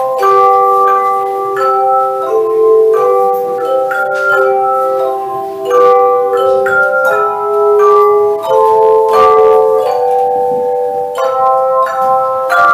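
Tone chime ensemble playing a tune in sustained chords: each note is struck and rings on, overlapping the next, as the chords change every half second to a second or so.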